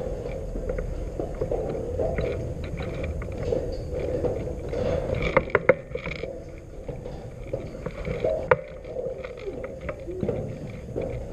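Footsteps and rustling gear of an airsoft player moving through a building and onto metal stairs, with scattered sharp clicks and knocks, the loudest a quick cluster about five and a half seconds in and one about eight and a half seconds in.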